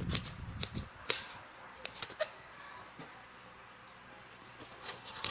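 Kitchen knife cutting through a lemon over a plate: scattered, irregular sharp clicks and scrapes of the blade, with a low rustle of handling near the start.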